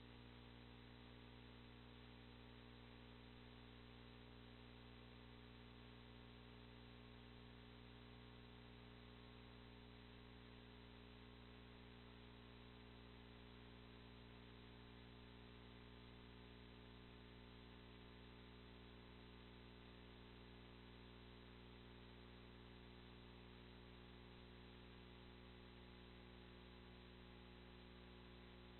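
Near silence: a faint, steady electrical hum with a layer of hiss, unchanging throughout.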